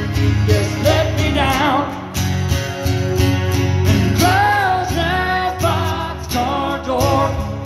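A man singing while strumming a steel-string acoustic guitar, amplified through a microphone and small mixer; the voice comes in about a second in over steady strumming.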